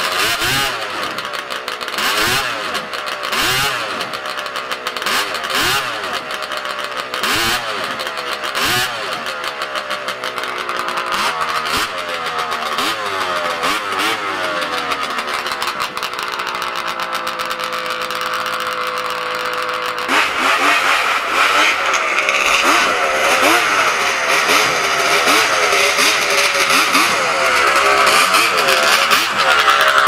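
Ski-Doo snowmobile's two-stroke engine warming up, its throttle blipped over and over so that the revs rise and fall back each time. It then holds a steady rev, and about two-thirds of the way through it changes suddenly to a louder, busier run.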